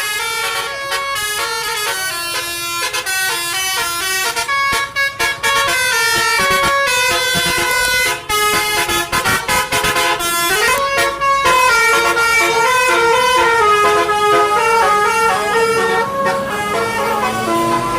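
Tour bus 'basuri' telolet horn playing a tune: a long, fast run of pitched horn notes stepping up and down in a melody, broken by a few short gaps.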